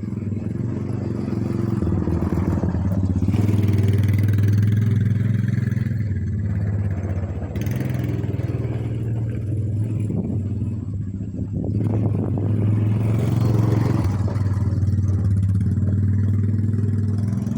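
A motor-driven machine running steadily with a low hum. Twice, about two seconds in and again about twelve seconds in, it gets louder for several seconds with added rough, scraping noise.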